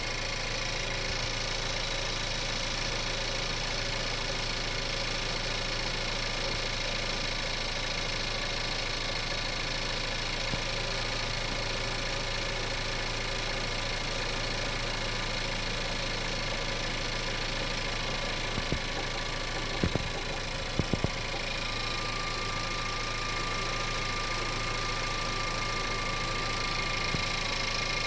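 Volkswagen-group 1.4 TSI (CZDA) turbocharged four-cylinder petrol engine idling steadily soon after a start, with a few sharp clicks about two-thirds of the way in. This is the stretch where the owner says a knock at idle begins to show on the nearly new engine, a knock that stays when warm and disappears in Drive.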